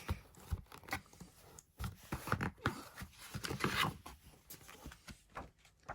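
Paper and card rustling and tapping as printed album inserts are handled and set down: irregular short rustles and light clicks.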